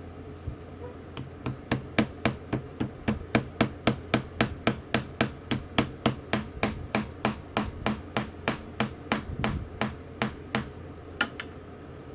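Rapid, evenly spaced light metallic taps, about four a second, for roughly nine seconds, then two stray taps near the end: a part on the fishing reel being tapped during reassembly.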